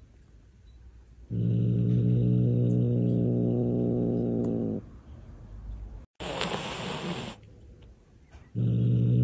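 Frightened cat growling low and steady for about three seconds, then hissing once, briefly, then starting to growl again near the end. The growl and hiss are the sounds of a scared, defensive cat.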